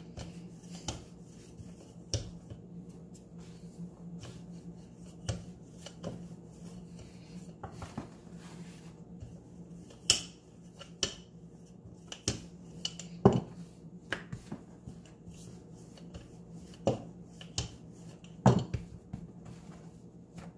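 Wooden rolling pin rolling pita dough flat on a countertop: a soft rubbing broken by scattered sharp clacks and knocks where the pin and its handles hit the counter, over a steady low hum.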